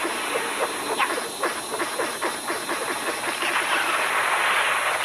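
Sound effects for an animated TV logo: a steady hiss with many quick chirps and clicks, the hiss swelling near the end.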